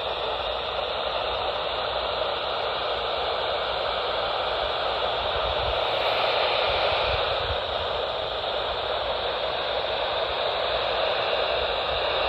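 Radio receiver putting out steady static hiss, with no signal or voice coming through.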